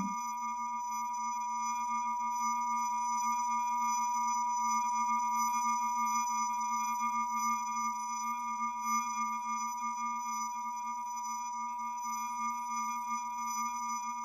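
Steady electronic drone: a low hum with several thin, high sustained tones held above it, unchanging throughout.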